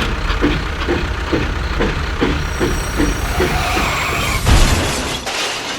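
A small machine's motor running with a steady low rumble and a regular beat of about three strokes a second, a heavy thud about four and a half seconds in, then the running dies away near the end.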